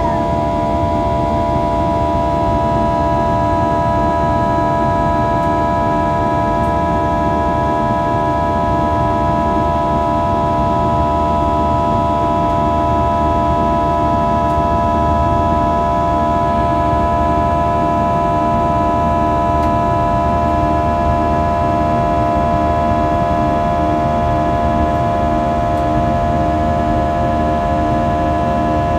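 IAE V2500 turbofan engine of an Airbus A320 during the climb after takeoff, heard inside the cabin: a loud, steady drone of several held tones over a low rumble.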